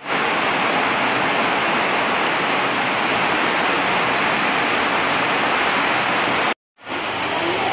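Heavy rain falling in a steady, loud hiss, with a brief cut-out about six and a half seconds in.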